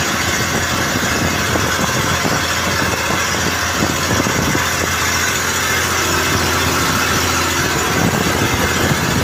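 Outrigger fishing boat's small engine running steadily while under way, a constant low hum with an even hiss of wind and water over it.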